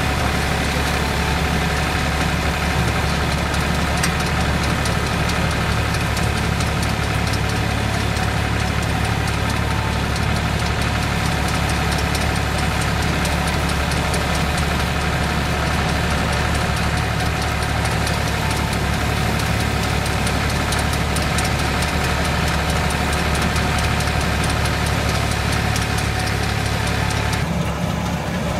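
Tractor engine running steadily, driving a stationary threshing machine by a long flat belt, with the thresher's steady clatter of straw and chaff being beaten out. Near the end the high clatter drops away, leaving the engine.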